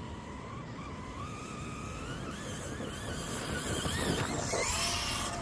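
Motor whine of an Arrma radio-controlled car, climbing and wavering in pitch as it speeds up and growing louder toward the end.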